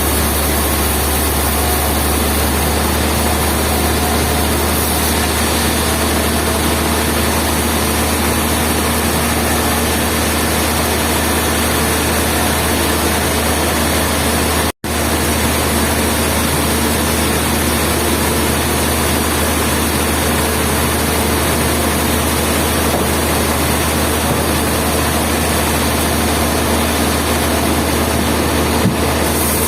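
Steady, unchanging din of industrial sawmill machinery running, with a strong low hum; it cuts out for an instant about halfway through.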